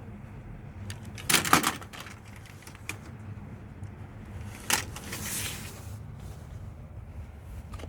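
Clicks and clatter of die-cast toy cars being handled and rummaged through: a quick cluster of sharp knocks about a second and a half in, and another sharp click near five seconds followed by a brief rustle.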